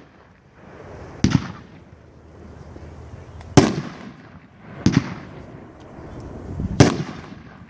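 500-gram consumer firework cake (World Class 'Sexy Rider') firing. Four sharp bangs, one to two seconds apart, each trailing off in a rumble, with lighter crackle between them.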